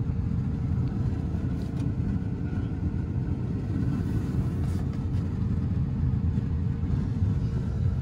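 Small car's engine idling steadily with the hood up, a low rumble with a faint constant hum over it. The car has an air-conditioning fault.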